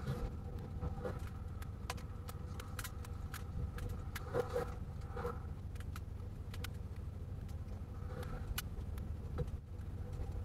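Steady low vehicle hum with a few steady tones above it, and many scattered sharp ticks.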